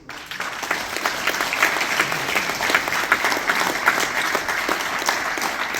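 Audience applauding, a dense clatter of many hands clapping that starts suddenly and holds steady.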